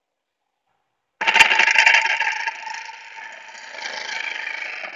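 Home-built electric outboard's DC motor spinning its propeller in the air when its leads are connected to a 12-volt battery, a 24-volt motor running on half its voltage. A steady whirring hum starts suddenly with a click about a second in, dips, rises again and cuts off at the very end.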